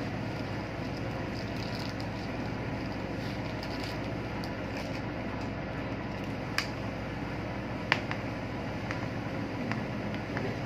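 Steady hum of background machinery, with a few sharp light clicks as small parts are handled about six and eight seconds in.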